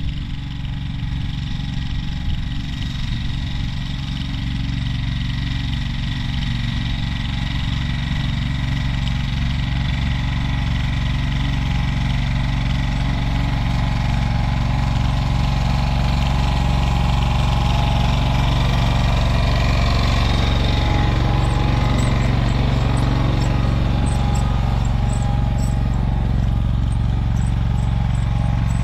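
AGCO Allis garden tractor engine running steadily as the tractor drives across the garden, growing louder as it comes closer.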